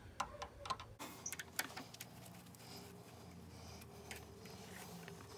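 Faint, scattered clicks and taps of a screwdriver on the wire terminal screws of an electric water heater's thermostat, bunched in the first two seconds with one more near the end, over a faint steady hum.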